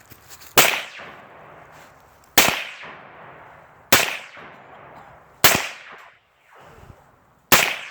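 Five single gunshots, spaced about one and a half to two seconds apart, each followed by a short fading echo.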